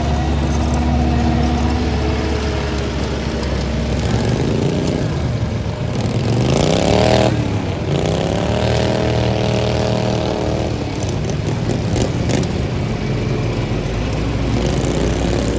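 Small lawn mower engines running in a derby, with one revving up in a rising whine about six seconds in, dropping off sharply, then holding a steady higher note for a few seconds before easing back.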